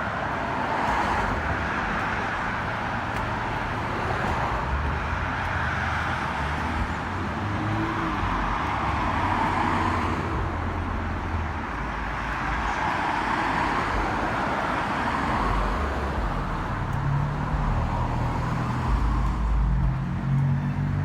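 City street traffic: cars passing one after another with a steady tyre hiss that swells and fades every few seconds, over a low engine rumble, typical of wet roads in the rain.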